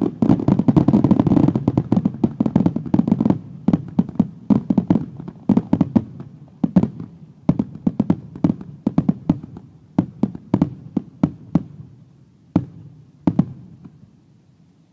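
Aerial firework shells bursting in a rapid barrage of bangs and crackles that thins out after about three seconds into scattered single booms, the last two well apart near the end before the noise dies away.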